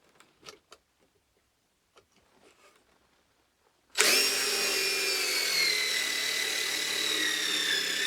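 Cordless impact driver spinning a drill bit, pre-drilling a pilot hole in a dry wooden stick. It starts about four seconds in and runs steadily with a high whine that sags slightly in pitch.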